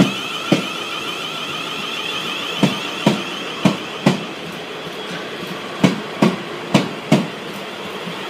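Class 450 Desiro electric multiple unit moving slowly past, its wheels knocking over rail joints in pairs, about two pairs a second apart, over a steady electric whine.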